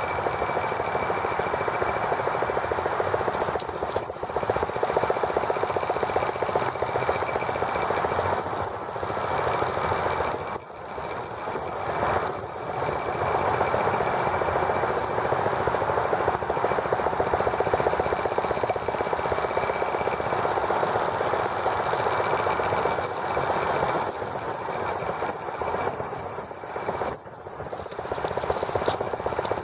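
Small gasoline model engine of a T26 toy tractor running steadily with a fast, even firing rattle, briefly dropping in level twice.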